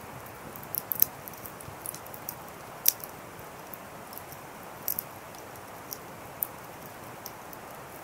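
Wood fire burning down to glowing embers: a steady soft hiss with irregular sharp crackles and pops, the loudest about three seconds in.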